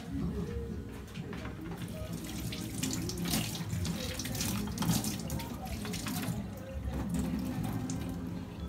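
Water running from a kitchen tap into a sink, heaviest from about two seconds in until past six seconds, over a low steady hum.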